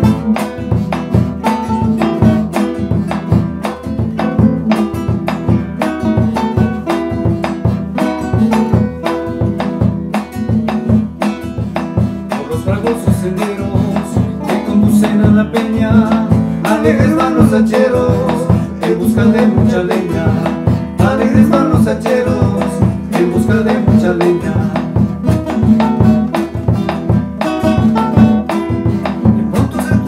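A bambuco played on two nylon-string acoustic guitars, picked and strummed in a steady lilting rhythm; partway through, two men's voices come in singing together over the guitars.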